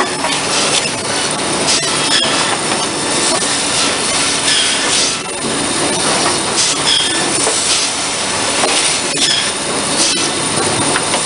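Cedar shake mill machinery running: a steady clattering din of metal and wood, with a brief high squeal about every two and a half seconds as the machine cycles.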